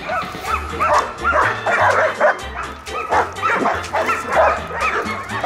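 German shepherd barking over and over in quick succession during protection work against a decoy, over background music with a steady bass line.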